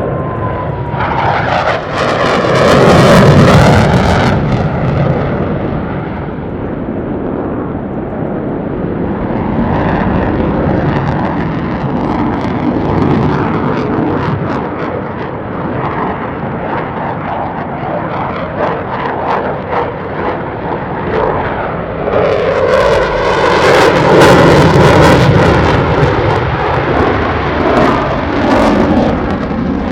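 Blue Angels F/A-18 Super Hornet jets making low flybys, their jet engines' roar swelling loud twice, about two seconds in and again about twenty-two seconds in, with a pitch that drops as a jet passes at the start.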